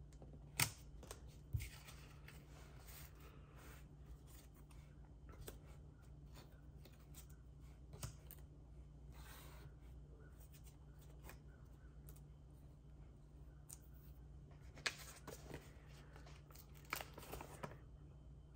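Quiet paper-craft handling: cardstock and paper being moved, rustled and set down. A few sharp taps and clicks stand out, over a steady low hum.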